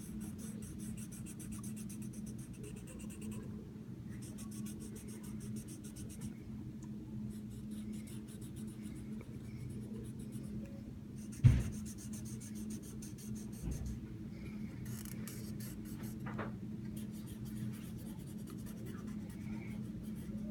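Colouring in on a paper worksheet: the colouring tool scratching and rubbing on paper, over a steady low hum. A single sharp knock sounds about eleven and a half seconds in.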